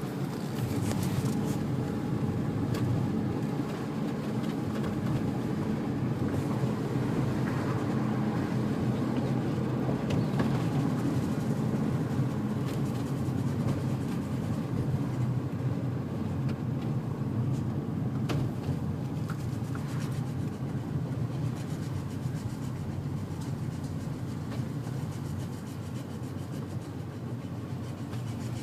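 Steady road and drivetrain noise of a 2003 Infiniti G35 coupe on the move, with a few sharp clicks from the rear passenger side under braking, the first about ten seconds in and more later. The cause is unknown; the owner wonders whether a broken bearing or spindle is to blame.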